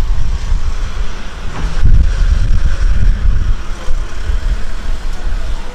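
Keihan electric commuter train moving along the station platform: a steady low rumble of wheels and running gear, swelling about two seconds in.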